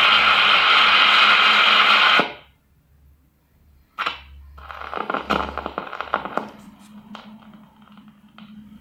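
Orchestra tuning up, a dense steady mass of held notes, played from a vinyl sound-effects record; it cuts off abruptly about two seconds in. After a moment of silence there is a sharp click, then a few seconds of faint irregular clicking and rustling.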